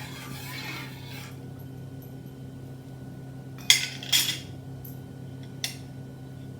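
A spoon clinking against a cooking pot as spices are added. A soft scrape comes in the first second, then two sharp clinks about half a second apart near the middle, then a lighter tap. A steady low hum runs underneath.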